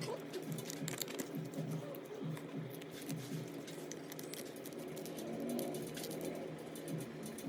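Rapid, irregular small clicks and crackles of an iPhone 11's laser-loosened back glass being chipped and broken off with a breaker tool.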